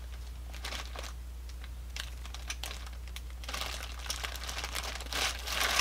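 Light, irregular clicking of plastic coins shifting against each other inside a sealed plastic bag as it is handled, with faint crinkling of the bag; the clicks come more often in the second half. A low steady hum runs underneath.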